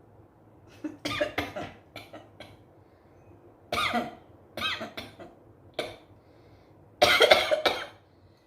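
A woman coughing in a series of short bursts, the loudest near the end. The coughs come instead of the sneeze she is trying to bring on by tickling her nose with grass.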